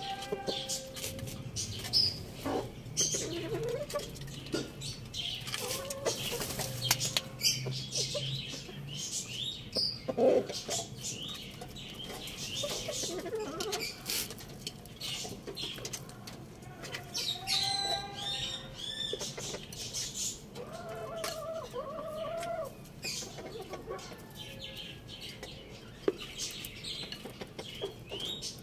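Rooster and hen clucking with short low calls, among scattered taps and rustles from pecking and scratching in the straw. High chirps come and go, with a run of them about two-thirds of the way in.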